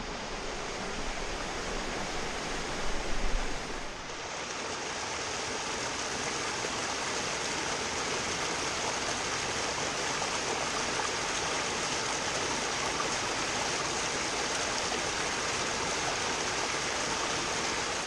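Water of a small rocky cascade running steadily into a pool, an even rushing noise. For the first few seconds it is rougher, with a low rumble and a few louder bumps near three seconds in, before it settles.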